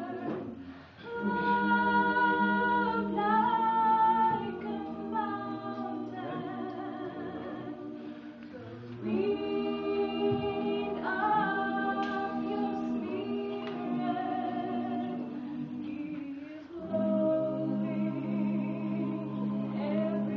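Small mixed a cappella gospel group, men's and women's voices, singing held chords in close harmony without accompaniment. The phrases break for a short breath about every eight seconds, each new phrase coming in louder.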